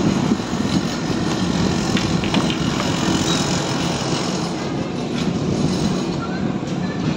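Steady low mechanical rumble of engines running close by, with a few faint light clicks about two seconds in.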